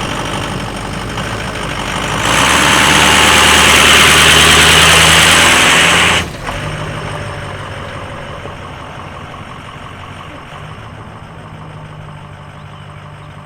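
Diesel pickup engine running at idle. About two seconds in it gets much louder and harsher for roughly four seconds, then drops back suddenly, and the idle grows gradually fainter toward the end.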